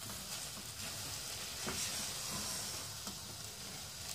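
Spatula stirring a thick almond-and-milk paste with sugar in a non-stick pan over low heat: soft scraping strokes over a faint sizzle.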